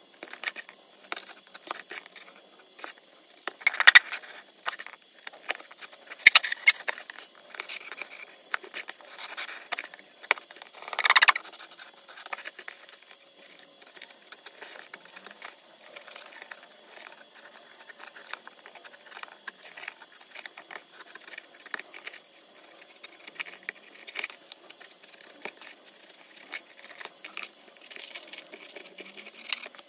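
A small hand blade scratching and scraping as it cuts circular holes into a cardboard phone box, with many small clicks and rustles as the box is handled. A few louder scrapes come in the first half.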